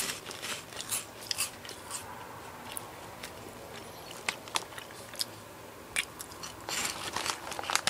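Close-up chewing of crunchy baked cheese puffs: a run of crisp, irregular crunches, with a denser burst of crunching near the end.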